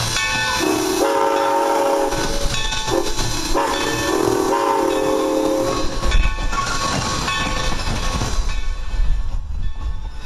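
Steam locomotive whistle sounding a chord in several blasts, the last ending about six seconds in. After that, passenger coaches roll past with a low rumble, and the wheels click over the rail joints.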